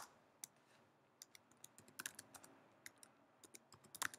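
Faint computer keyboard keystrokes: a sharp click at the start, then scattered, irregular taps, with a few quicker ones near the end.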